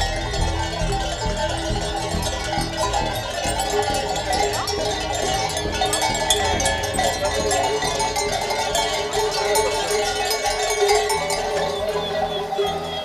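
Many sheep bells clanking and ringing together as a flock of ewes walks along on the move.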